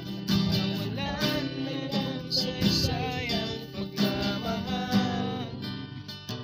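Acoustic guitar being strummed.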